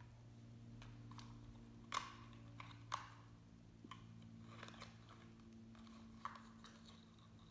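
Small cardboard card box being handled and opened: a few light clicks and taps of cardboard, two sharper clicks a second apart, over a faint steady low hum.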